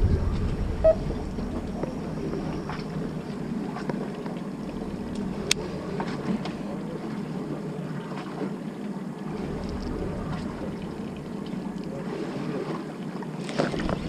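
Steady rumble of a fishing boat at sea, with wind buffeting the microphone. A single sharp click about five and a half seconds in.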